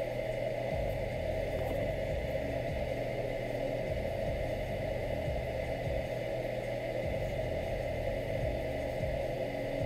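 Steady hum and hiss of continuous background noise, even throughout, with a faint steady high tone and no distinct knocks or clicks.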